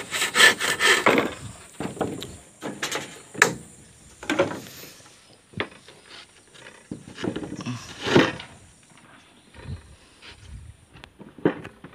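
Handsaw cutting through a wooden floor plank with a few quick, even strokes that stop about a second in. After that come scattered knocks and scrapes of wooden boards being handled and laid in place.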